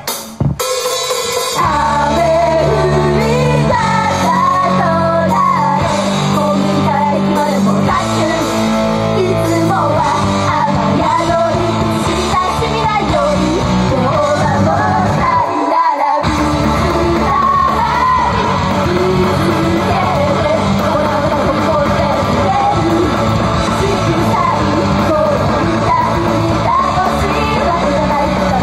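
Idol group singing a rock-style song over loud guitar-and-drums accompaniment, in the reverb of a live club hall. The full band sound comes in about a second in, and the bass drops out briefly about halfway through.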